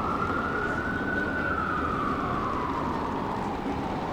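Emergency vehicle siren on a slow wail: it rises, falls gradually over about three seconds, and starts rising again near the end. Steady traffic noise runs underneath.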